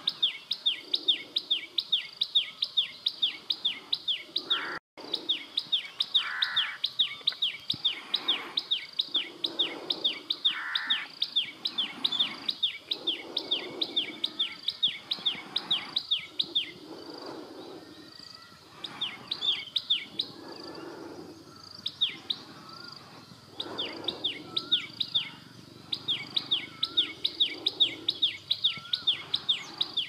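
A small long-tailed songbird singing: long runs of sharp, downward-sliding notes, about five a second, repeated on and on. Past the middle the run breaks into scattered notes for several seconds, then picks up again. Fainter, lower sounds come and go behind it every couple of seconds.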